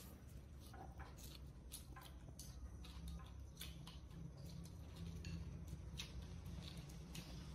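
Faint close-up eating sounds: chewing of crunchy boiled mustard greens and rice, with many small clicks of chopsticks against a porcelain rice bowl.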